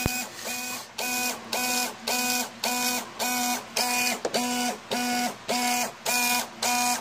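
Landing gear mechanism of a model P-38 running as the gear extends: a pitched mechanical whir that pulses on and off evenly, about twice a second. A single sharp click sounds right at the start.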